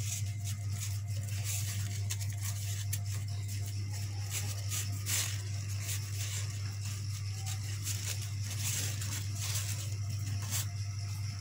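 Crepe paper crinkling and rustling in short scratchy crackles as a green strip is wound around a chopstick stem, over a steady low hum.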